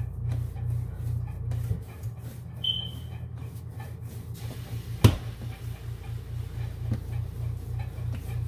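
Bread dough being kneaded by hand on a stone countertop: rhythmic pushing, folding and rubbing. A single sharp knock comes about five seconds in.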